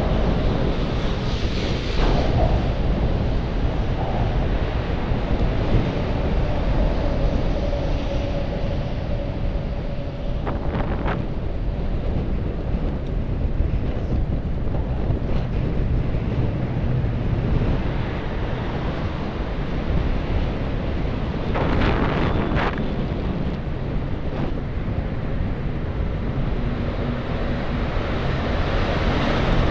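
Wind rushing over the microphone of a moving bicycle together with a steady low rumble of motor traffic on the bridge roadway alongside, with a few brief louder rushes.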